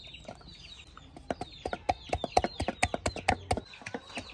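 A pestle pounds ginger and garlic in a wooden mortar: a quick run of sharp knocks, about five or six a second, starting about a second in and stopping shortly before the end. Bird calls sound in the background throughout.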